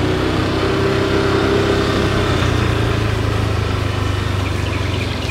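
A vehicle's engine running steadily at low speed as it travels along, with its higher engine note fading after about three seconds.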